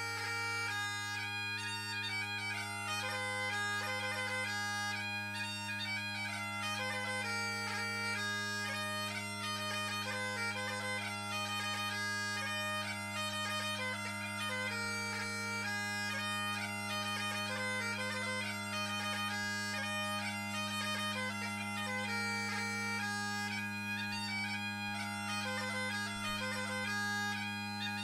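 Great Highland bagpipes playing a fast-moving chanter melody over steady, unbroken drones. The drones are tuned to the chanter's low G instead of the usual low A, setting the pipes in G major.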